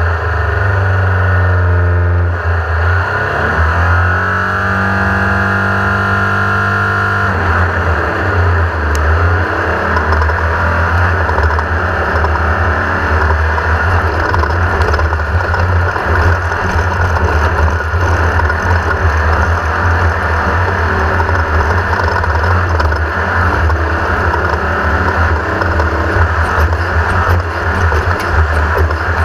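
1982 Race-co 1600-class off-road buggy's air-cooled VW engine running hard at speed. Its pitch dips and climbs again a couple of seconds in, holds steady, and from about seven seconds in the sound turns rougher and noisier.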